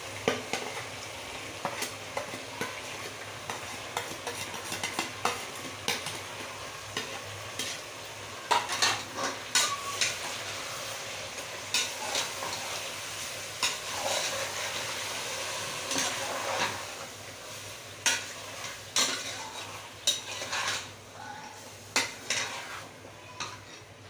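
Chicken, onion and tomato masala sizzling in oil in a pressure cooker as it is sautéed (bhuna). A spatula stirs it, scraping and knocking against the pot in irregular strokes over a steady sizzle.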